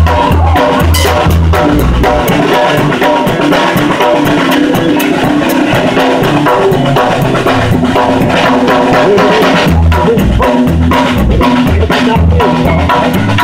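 Live band playing, heard from just behind the drum kit: drums and cymbals are loudest, with steady rhythmic hits. Low bass notes drop out for several seconds in the middle and come back near the end.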